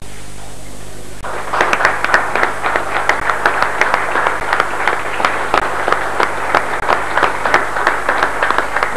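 A crowd applauding, starting about a second in after a short stretch of steady hiss.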